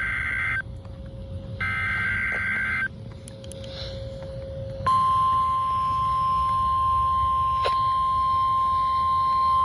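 Emergency alert SAME header data bursts: short buzzy digital squawks, the end of one and then a second about a second long. About five seconds in, the steady single-pitch NOAA Weather Radio 1050 Hz warning alarm tone begins and holds, the signal that a warning, here a severe thunderstorm warning, is about to be read.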